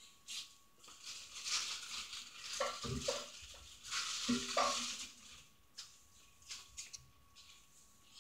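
Rustling and scraping of felt and elastic being handled while hand-sewing, with a couple of soft knocks, louder in the first half and dying down to faint small ticks after about five seconds.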